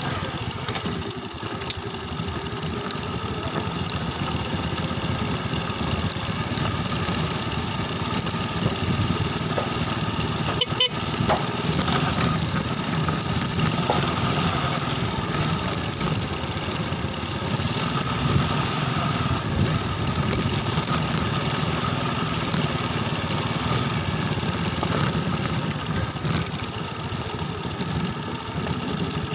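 Rusi motorcycle's engine running as it rides slowly in low gear, with one sharp knock about eleven seconds in.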